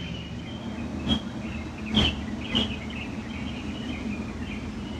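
Small birds chirping continuously over steady outdoor background noise, with three sharp knocks about one, two and two and a half seconds in.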